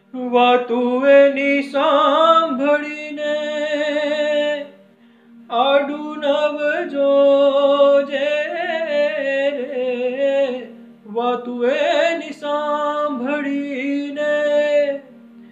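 A man sings three long, drawn-out, ornamented phrases of a Gujarati devotional song, with short breaths between them, over a steady low drone.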